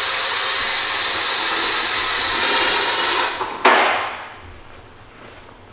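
Two-post car lift lowering the car: a steady hiss for about three seconds, then a brief louder rush before it goes quiet.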